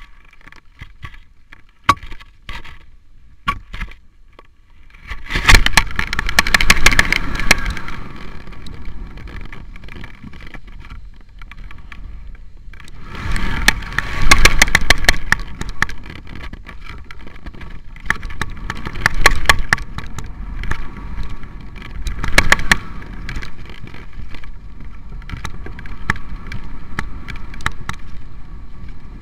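Wind buffeting a camera hung from a kite line, with many sharp clicks and rattles from its suspension rig. The rush grows loud about five seconds in and again around thirteen seconds, then settles to a steadier level.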